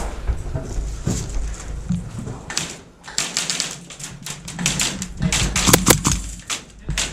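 Airsoft gunfire: scattered sharp shots and BB strikes, in irregular clusters of cracks through the latter part, over a low steady hum.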